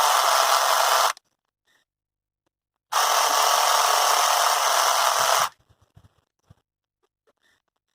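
Philips cordless epilator running with a high, even buzz, switched off after about a second and run again for about two and a half seconds, followed by a few faint clicks from handling.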